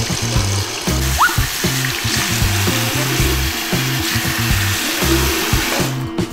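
Tap water running into a bathroom sink as a child rinses, over background music with a steady beat; the running water stops near the end.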